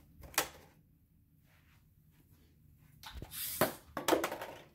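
A ping pong ball dropping into a cardboard box lined with paper cupcake liners, landing with a quick run of light knocks and bounces near the end. A single sharp click about half a second in.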